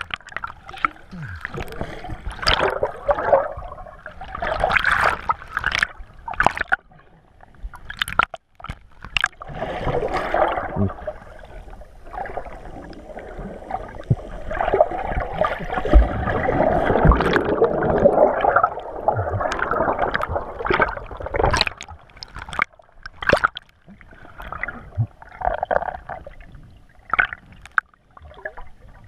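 Water gurgling and sloshing around a submerged GoPro's waterproof housing, heard muffled through the case, with irregular splashes and sharp knocks. The water noise swells to its loudest about halfway through.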